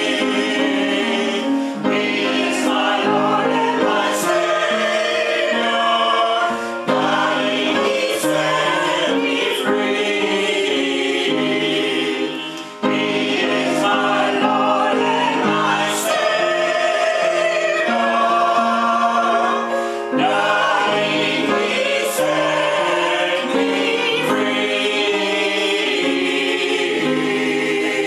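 Small mixed church choir of men and women singing together in harmony, with long held notes and a brief break about halfway through.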